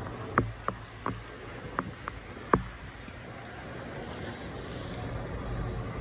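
Steady low rumble of street traffic, with six sharp, irregular knocks in the first half; the last knock is the loudest.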